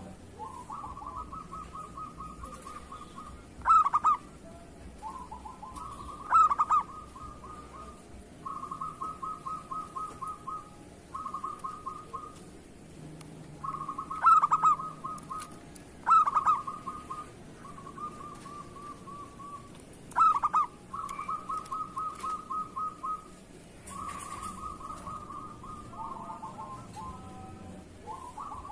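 Zebra dove (perkutut) singing: runs of quick, rolling coos at one pitch, broken about five times by short, much louder accented notes.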